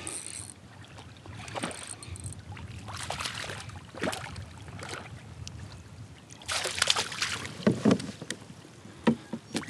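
A small crappie splashing at the surface as it is reeled in beside a kayak, then louder water sloshing about two-thirds of the way through as it is scooped into a landing net, with wind rumbling on the microphone.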